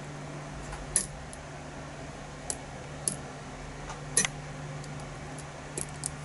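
Scattered sharp metallic clicks and ticks of lock picks working the pins inside a challenge lock, the loudest about a second and about four seconds in, over a steady low hum.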